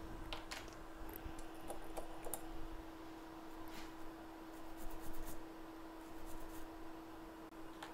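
Faint handling noises at a repair bench, scattered light scratches and clicks as a phone logic board is touched and handled, over a steady hum.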